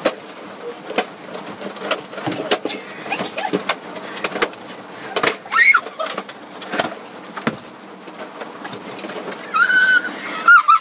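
A hammer knocking at a car tire in irregular taps. A few short high-pitched cries come midway and near the end.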